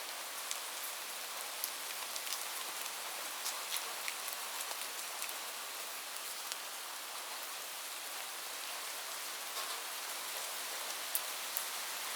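Steady rain: an even hiss of falling rain with scattered sharp ticks of individual drops striking a surface.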